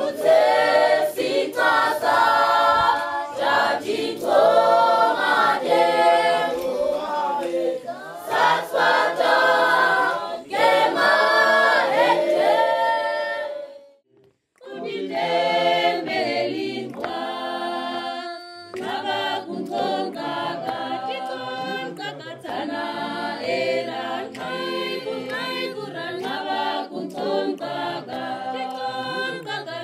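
A group of children and adults singing together in chorus, unaccompanied. The singing breaks off for a moment about halfway through, then goes on somewhat quieter.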